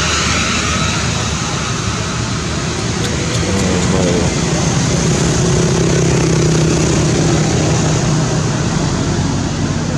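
Steady motor-vehicle engine hum that swells through the middle and fades near the end, like a vehicle passing, over a constant loud hiss. A brief wavering call is heard about four seconds in.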